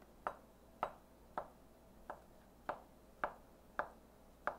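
Cleaver chopping through Spam and striking the cutting board: eight sharp knocks in an even rhythm, about two a second, as the luncheon meat is diced.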